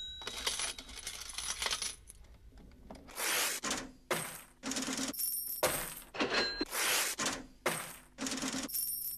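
Metal objects clinking and rattling in an irregular series of short bursts, some with brief high ringing tones.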